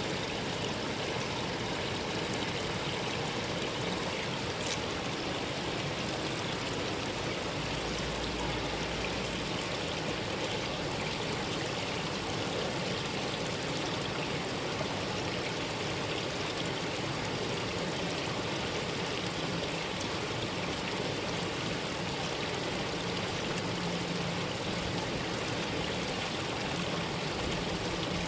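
Mountain valley stream flowing, a steady rushing of water.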